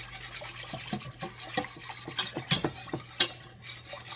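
Wire whisk stirring a milk-based white sauce in a stainless steel saucepan, with irregular light clicks and scrapes of the wires against the pan's sides and bottom, two or three a second.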